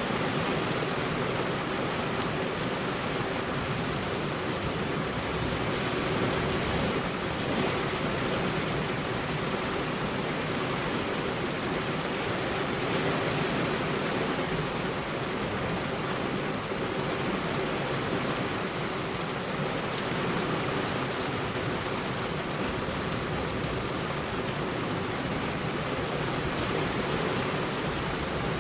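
Heavy rain falling steadily on a road, an even hiss with no thunder.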